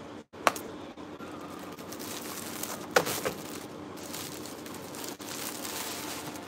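Folded silk sarees in their packaging being handled: a steady crinkling rustle, with sharper crackles about half a second in and again around three seconds in.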